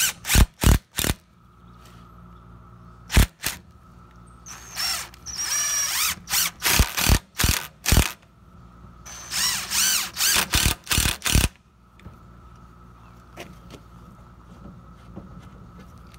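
DeWalt impact driver driving pocket-hole screws into pine 2x4s: several short quick pulses at the start, two longer runs with a whine, about 4.5 and 9 seconds in, each followed by short pulses. It stops about 12 seconds in.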